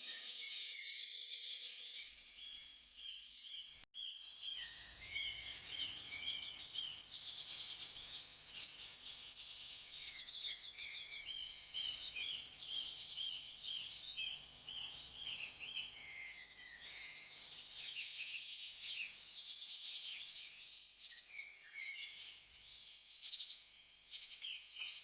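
Many small birds chirping and trilling at once in a dense, continuous chorus, with a brief break about four seconds in.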